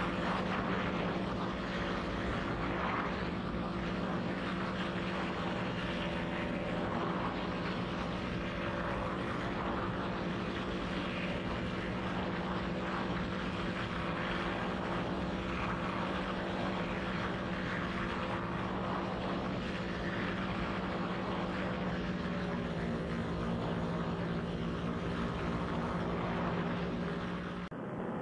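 Paramotor trike's engine and propeller running steadily in cruising flight: an even drone with a steady hum.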